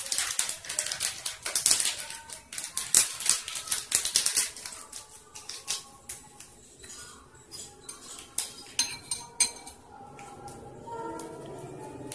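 Scissors snipping open small coffee sachets, with the packets crinkling and rustling in quick bursts. The sounds thin out after about five seconds, and background music comes in near the end.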